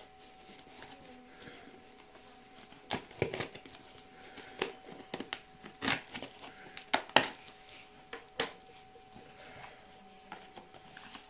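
A knife cutting through packing tape and cardboard on a parcel, a series of sharp rips and scrapes loudest through the middle, followed by cardboard flaps rustling as the box is opened.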